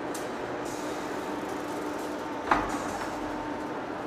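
Heavy-duty face lathe running steadily with a low hum, with one sharp knock about two and a half seconds in.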